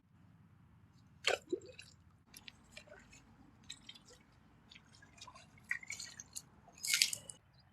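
Faint water drips and small splashes, with scattered light clicks and taps. A louder splash-like burst comes about a second in and another near the end.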